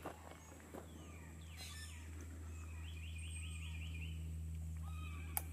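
Wild birds chirping and calling, with gliding whistles and a quick run of about six rapid notes a little past halfway, over a steady low hum; a single sharp click near the end.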